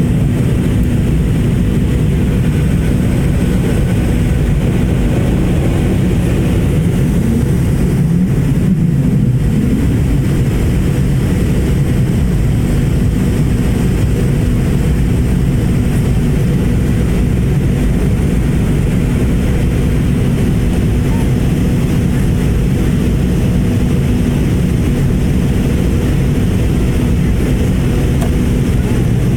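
Airliner engine and airflow noise heard inside the passenger cabin during take-off: a loud, steady drone with a low hum that holds level.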